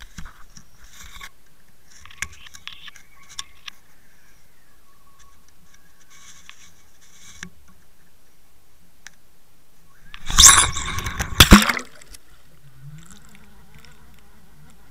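Scrapes and light knocks of a Water Wolf underwater camera's housing as it is handled and swung at the water's edge. About ten seconds in comes a loud splash lasting about a second and a half as the camera goes into the water. After that the sound is muffled and steady, with a low hum.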